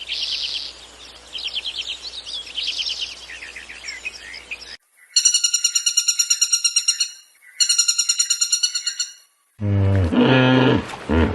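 Small birds chirping in quick trills. After a break, two loud, rapidly pulsing high-pitched calls of about two seconds each. Near the end a deeper, louder voiced sound begins.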